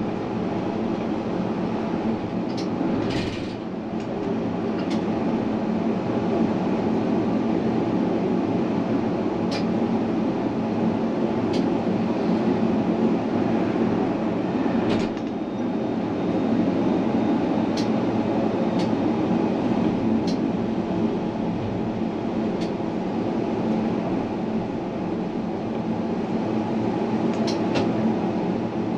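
Tram running along its track: a steady rolling rumble with a constant hum, broken by occasional sharp clicks from the wheels and track.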